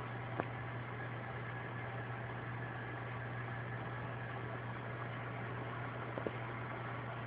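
Steady low hum with an even background hiss, and two faint clicks, one near the start and one about six seconds in.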